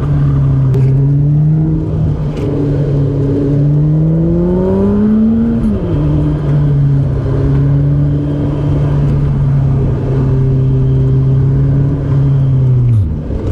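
Honda CR-V engine running on the road. Its pitch climbs steadily for a few seconds as it accelerates, drops sharply about six seconds in, holds steady, then drops again near the end.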